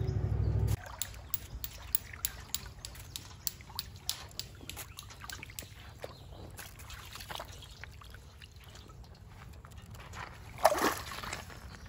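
Water sloshing in a steel bowl as vegetables are washed by hand, cut off about a second in. A long run of light, irregular clicks and crackles follows, with one short, louder sound near the end.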